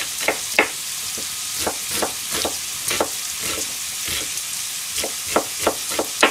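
Kitchen knife chopping an onion on a cutting board: irregular sharp knocks, a few per second, over a steady sizzle from a pan frying on the stove.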